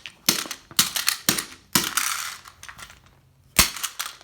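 Hammer blows on a plastic wind-up toy: a quick run of sharp, hard smacks with rattling clatter of loose plastic and metal parts, then one more hit about three and a half seconds in.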